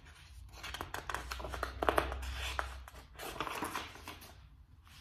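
Paper rustling and crackling as the pages of a paperback picture book are handled and turned, a dense run of small crinkles and clicks that is busiest around two seconds in and dies away near the end.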